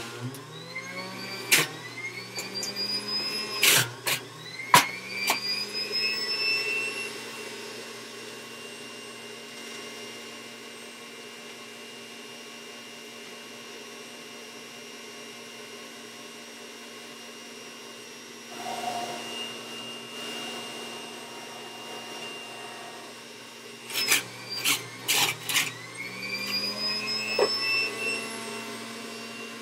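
Old Breville Juice Fountain centrifugal juicer running with a steady motor whine. Produce is pushed down its feed chute in sharp knocks near the start and again near the end, and after each push the motor's whine climbs back up in pitch.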